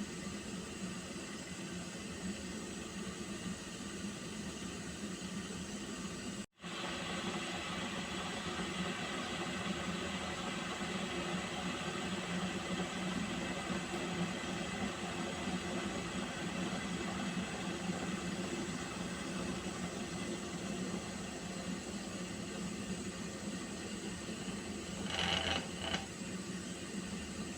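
Pot of water heating on a stove: a steady hiss with a low rumble, and a brief pitched squeal near the end.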